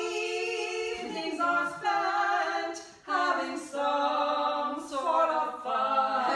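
Women singing unaccompanied, a slow line sung in long held notes with short breaths between phrases.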